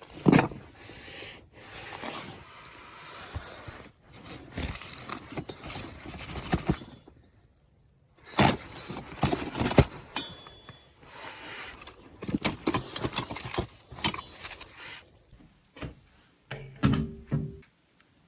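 Hands handling a Bosch GSR 12 VE-2 cordless drill on a bench: irregular clicks, taps and scrapes of plastic and metal, with a brief low hum near the end.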